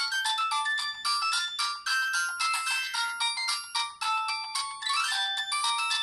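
Ringtone melody played through the small built-in speaker of a Siemens SF65 clamshell phone: a quick run of electronic notes, several sounding at once, thin with no bass.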